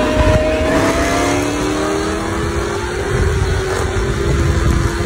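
V8 muscle-car engine pulling hard under acceleration, its note climbing over the first few seconds and then holding, over a steady rush of wind and road noise.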